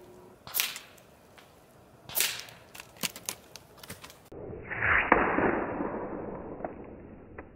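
Nova Freedom .22 PCP air rifle firing: two sharp shots about a second and a half apart, then a quick cluster of small clicks. About halfway through, a muffled rush of noise swells and slowly fades.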